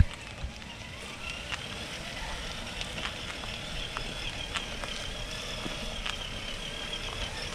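Small electric motor of a Traxxas TRX4 RC crawler whining steadily at a high pitch that wavers slightly, with scattered clicks and knocks.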